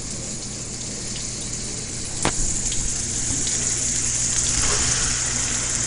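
Onions and garlic frying in hot oil in a wok, a steady sizzle that grows louder from about two seconds in as raw pork cubes are dropped in, with one sharp tap near that moment.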